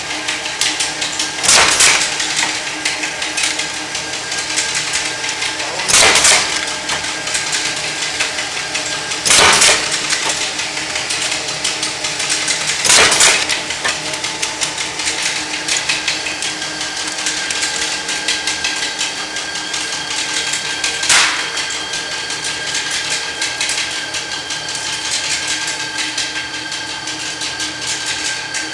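Tee bar roll forming machine running steadily with a few fixed tones. Its pneumatic press unit strikes loudly about every three to four seconds, four times, then once more after a longer gap.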